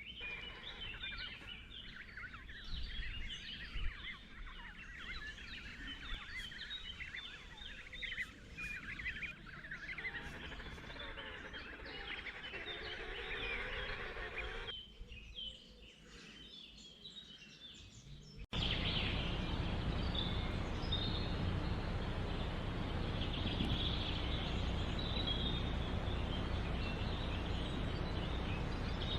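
Many birds calling at once, a dense chatter of short high calls. About two-thirds of the way in it changes abruptly to a louder, steady noise with scattered calls over it.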